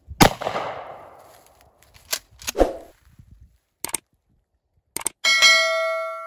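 A single blast from a Mossberg Shockwave pump-action shotgun, its report dying away over about a second, followed by two short clacks. Near the end, a click, another click and then a bell-like ding that rings on: a subscribe-button sound effect.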